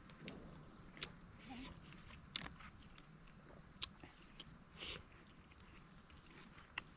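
Quiet close-up chewing and mouth smacks of someone eating bamboo-cooked fish, with several short sharp clicks scattered through.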